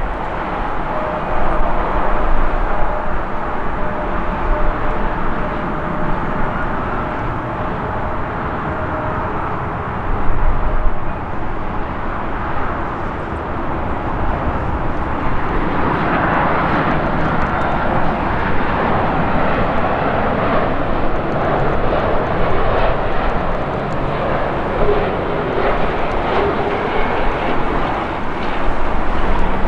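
Jet airliner engines: a steady jet noise with a faint held whine in the first third, swelling about halfway through into a louder, fuller jet roar.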